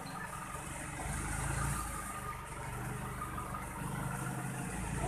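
Low engine rumble of a motor vehicle, swelling slightly about a second in, over a faint hiss.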